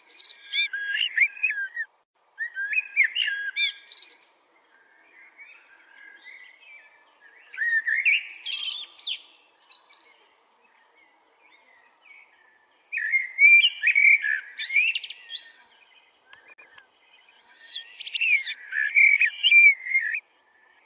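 Koel calling in five bursts of rapid, shrill notes, each about two seconds long, with fainter calls in the gaps between them.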